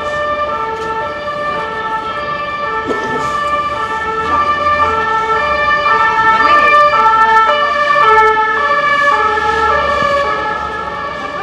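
Emergency vehicle's two-tone siren, alternating between a high and a low note about once a second. It grows louder as it approaches, peaks, then fades as it passes.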